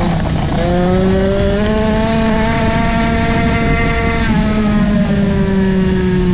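Onboard sound of a 65cc two-stroke flat-track motorcycle engine under hard throttle, its pitch climbing steadily for about three and a half seconds down the straight, then dropping sharply about four seconds in as the rider backs off for the turn and holding lower after.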